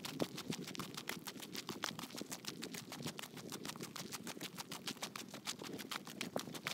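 Footsteps on a gritty, worn paved track during a steady walk: a quick run of small crunching ticks, with wind rumbling on the microphone underneath.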